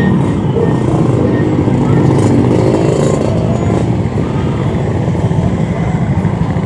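Street traffic of motorcycles and cars: small motorbike engines running and revving in a steady low rumble.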